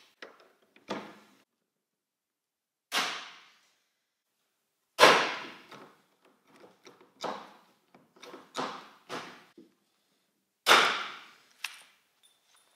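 Hand pop-rivet gun setting rivets in a car hardtop's metal trim: a string of about seven sharp snaps as the rivet mandrels break, spaced irregularly, the loudest about five seconds in and another near the end.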